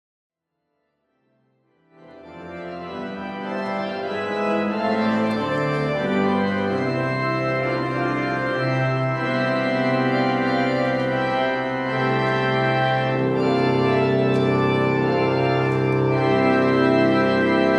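Organ playing slow, sustained chords, fading in out of silence about two seconds in and then holding steady.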